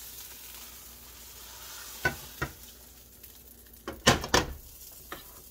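Faint frying sizzle with a few sharp clicks and scrapes of a utensil against a frying pan, the loudest cluster about four seconds in, as a ham-and-cheese pancake is slid out of the pan onto a plate.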